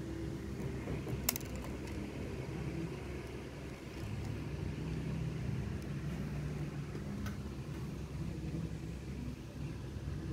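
A steady low mechanical hum, with one sharp click a little over a second in.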